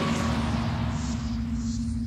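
Closing drone of the title music: one steady low note held over a deep rumble, with a high hiss that fades away.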